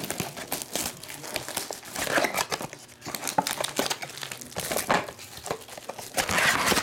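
A foil-wrapped trading-card pack crinkling and a cardboard card box rustling as the box is opened and the pack and cards are handled, in a run of irregular crinkles and scrapes.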